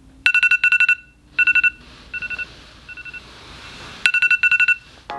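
Smartphone alarm beeping in repeated bursts of rapid electronic beeps. The beeps are fainter in the middle and loud again near the end.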